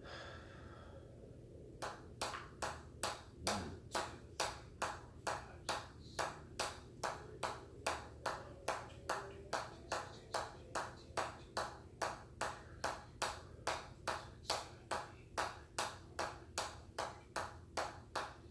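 A ball bouncing on the head of a hammer over and over: sharp, evenly spaced pings at about two and a half a second, starting about two seconds in and holding a steady rhythm.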